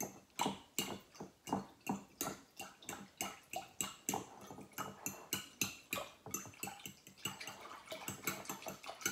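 A spoon stirring liquid in a glass mixing bowl, clinking against the glass about two to three times a second as gelatin jelly is dissolved in water.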